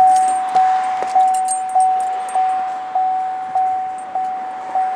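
Holden VF Commodore's warning chime dinging over and over, one single note repeating a little under twice a second, each ding fading before the next.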